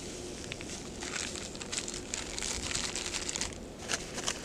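A small plastic bag of ground coffee crinkles as it is handled and tipped out over a kettle, with quick irregular crackles from about a second in. Under it runs a steady hiss.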